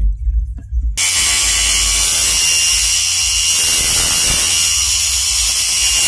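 Angle grinder switched on about a second in and running steadily at speed with a high whine and hiss.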